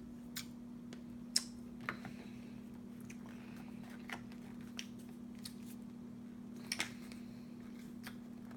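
A chocolate package being handled: a few scattered light clicks and crinkles of the wrapper, over a steady low hum.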